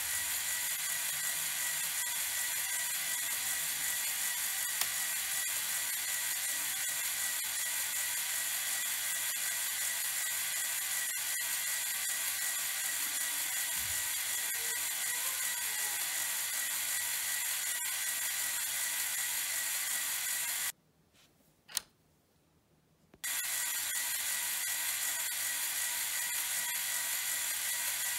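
LEGO Technic electric motor turning a plastic gear train, running with a steady whir. It cuts out for about two seconds a little after twenty seconds in, with a single click in the gap, then runs on.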